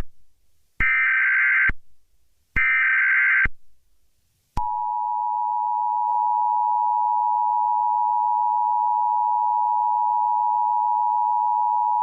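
Emergency Alert System alarm: two short bursts of SAME header data tones, about a second apart. Then, about four and a half seconds in, the steady two-tone EAS attention signal begins and holds.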